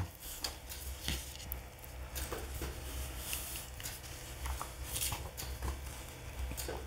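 Sheets of paper rustling and shuffling as they are picked up and laid flat on a table, in short scattered rustles over a faint steady low hum.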